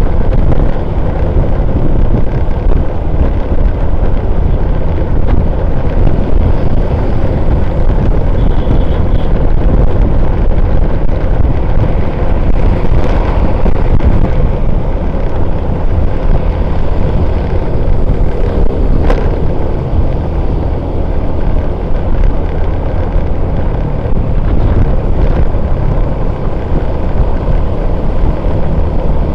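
Steady heavy wind rumble on the microphone of a camera mounted on a moving vehicle, mixed with road and traffic noise. A short click sounds about nineteen seconds in.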